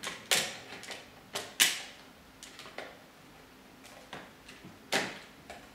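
Sharp clicks and knocks of a hard plastic ring-flash control unit being handled, several at irregular intervals, the loudest about a second and a half in and again near the end.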